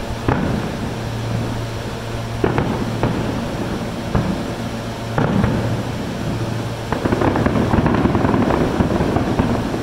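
Aerial fireworks shells bursting: about half a dozen separate bangs a second or so apart, then a denser run of crackling near the end. A steady low hum runs underneath.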